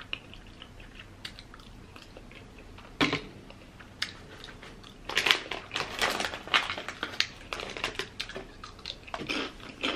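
Faint chewing, then a sharp clack about three seconds in. From about five seconds in, a chip bag crinkles and potato chips crunch loudly as they are bitten and chewed, in quick irregular crackles.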